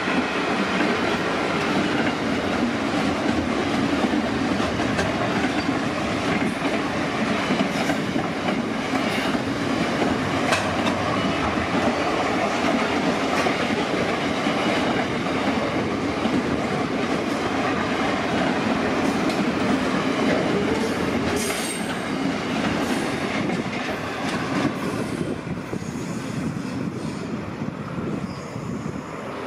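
Container freight train's wagons rolling past at close range: a steady rumble and clatter of steel wheels over the rails, with a faint high wheel squeal in the first few seconds. The noise eases off after about 25 seconds as the last wagon goes by.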